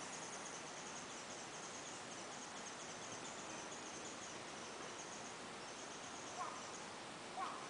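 Insects chirring steadily outdoors, a high-pitched pulsing drone, with two brief faint pitched calls near the end.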